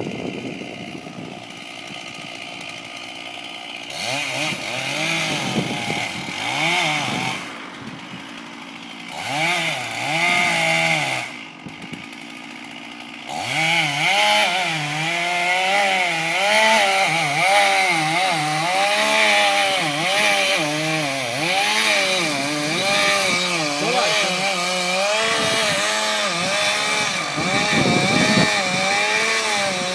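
Chainsaw cutting into a tree trunk, its engine pitch rising and dipping under load. It drops back to a lower idle a few times in the first half, then runs on steadily in the cut.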